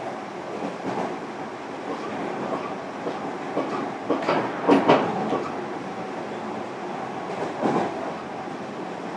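Interior running noise of a JR Kyushu 305 series electric train, recorded in a motor car: a steady rumble of wheels on rail, with a cluster of sharp clacks about four to five seconds in and another near the end.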